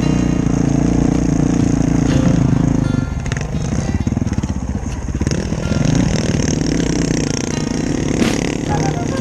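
Honda CRF450L's single-cylinder four-stroke engine running at steady revs, then dropping about three seconds in to a lower, uneven chugging.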